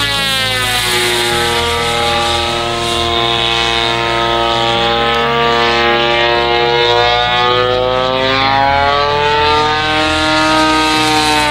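Large-scale radio-controlled Extra 300 aerobatic plane in flight, its DLE 130cc twin-cylinder two-stroke gas engine and propeller running loud, the pitch rising and falling over several seconds as the plane manoeuvres.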